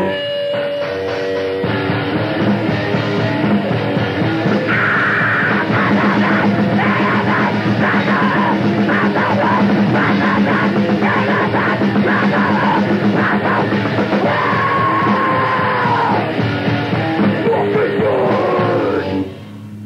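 A short, loud grindcore song from a lo-fi cassette recording: distorted guitars and drums with yelled vocals. A held note opens it, the full band comes in about a second and a half in, and it cuts off abruptly near the end.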